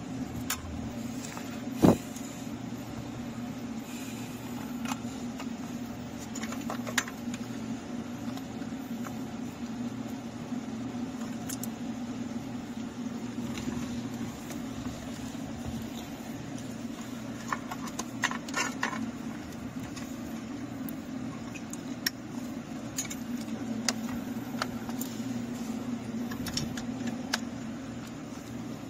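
Plastic wiring-harness connectors and bundled wires being handled and plugged together, giving scattered clicks and light rattles. The loudest is a single sharp click about two seconds in. A steady low hum runs underneath.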